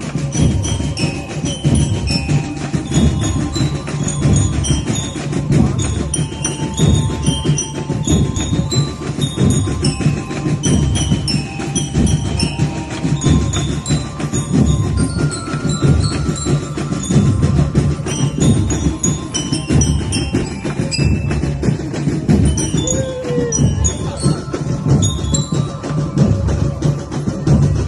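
Band music with a steady driving beat and short, bright repeated high notes over it, playing without a break.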